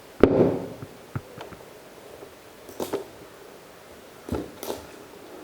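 Handling of a product box and its packaging being opened: a knock with a rustle about a quarter second in, then scattered light clicks and rustles.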